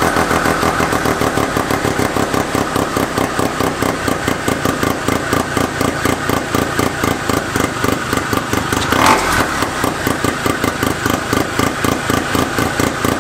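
Arctic Cat Panther's 303 rotary (Wankel) engine running steadily and unloaded, with an even pulsing beat, briefly louder about nine seconds in. It runs well now that a new crank seal has replaced the leaking PTO-side seal that had been letting air into the engine.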